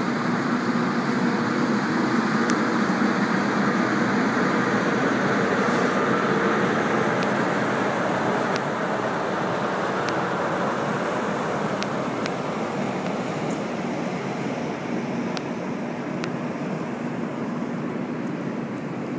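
Steady drone of running machinery with a low hum in it, easing off slightly in the second half, with a few faint ticks.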